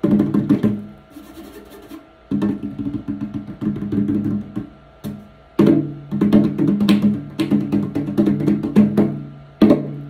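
Hands drumming on the hollow plastic shell of a failed 3D-printed side table, played like a hand drum: runs of quick slaps, each with a pitched, resonant ring, broken by a couple of short pauses.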